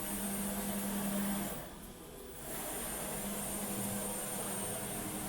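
CNC router machinery running with a steady hum and a high whine, which drops away for about a second around two seconds in and then comes back.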